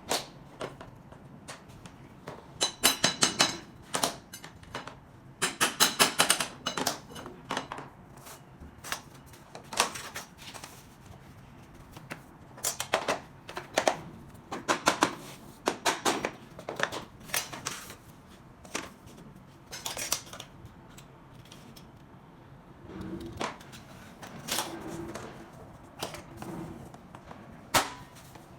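SPC stone-plastic floor planks being tapped and clicked into place: many sharp knocks and clicks, some in quick runs of several strokes.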